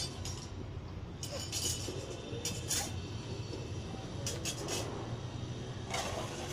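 A handful of short, irregular rustles and clicks of hibiscus leaves and twigs as a rooster pecks and tugs at them, over a steady low rumble.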